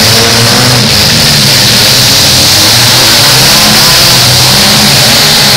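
Demolition derby cars' engines running and revving together on the track, very loud and steady.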